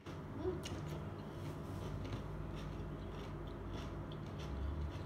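Close-up chewing of raw carrot sticks, with crisp crunches repeating at an uneven pace over a steady chewing sound.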